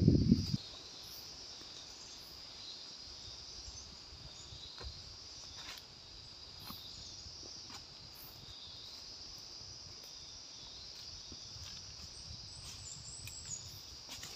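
Steady high-pitched chirring of forest insects, with a few faint snaps and rustles of footsteps on dry leaves and twigs a few seconds in.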